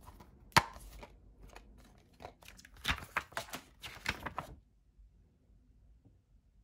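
A plastic DVD case clicks open sharply, then paper and plastic crinkle and rustle as the booklet is pulled out and unfolded. The handling stops after about four and a half seconds.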